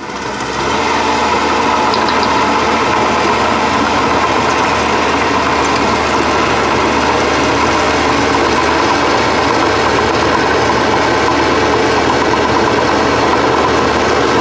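Mini excavator's hydraulic power-pack engine running steadily at constant speed while the hydraulics move the machine.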